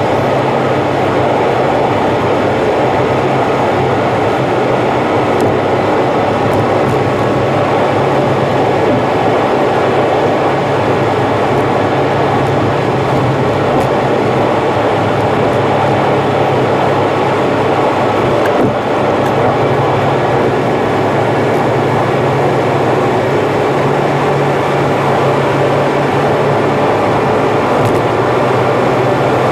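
Steady road and engine noise of a car cruising on an expressway, heard from inside the car and played back at about three times normal speed.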